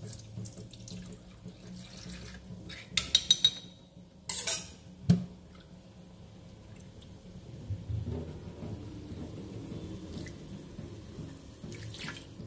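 Shredded chicken and broth simmering in an aluminium wok, with a cluster of metal clinks and knocks from the utensils against the wok about three to five seconds in, the loudest a single sharp knock.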